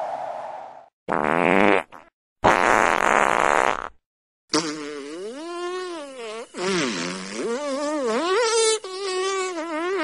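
Sea water splashing hard in three short rushes. Then a long buzzing tone with a fart-like quality takes over, wavering up and down in pitch for several seconds.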